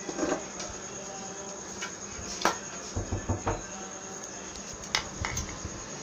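Light clicks and knocks of a multimeter's test leads and a laptop charger's cable and DC plug being picked up and handled on a glass table top: a handful of scattered taps, with a quick cluster in the middle.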